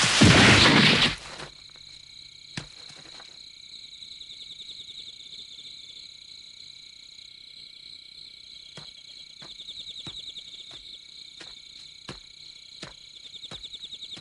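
A loud rushing burst for about the first second. Then crickets trill steadily, and in the second half soft regular footsteps come about every two-thirds of a second.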